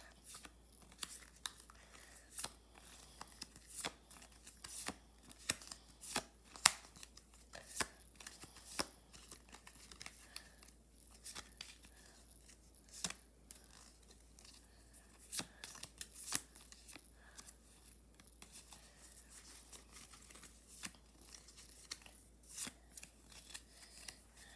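Playing cards being handled: irregular light snaps, taps and rustles at close range, one sharper snap about six and a half seconds in.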